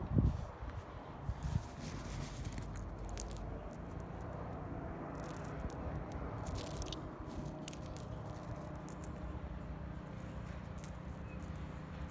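Small rough pink tourmaline crystals clicking lightly against one another as they are handled and tipped into a palm, in scattered groups of small clicks over a steady low hum.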